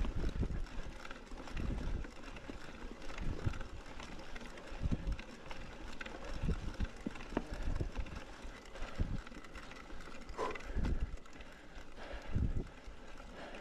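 Mountain bike being ridden over rough ground: irregular thumps and rattles as the bike hits bumps, with a brief squeak about ten seconds in.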